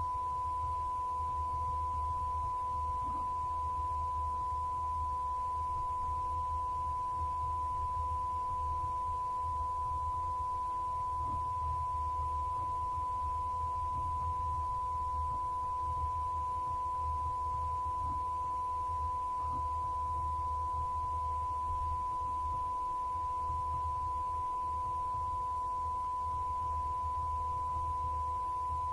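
A steady pure test tone held without a break, over a low hum.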